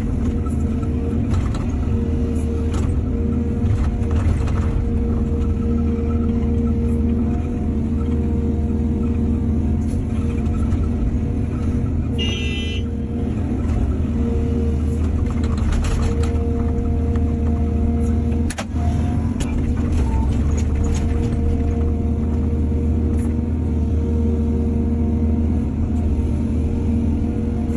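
Heavy diesel engine of an excavator running steadily under load, a deep rumble with a steady hum over it, with scattered short knocks and a brief rattling pulse about twelve seconds in.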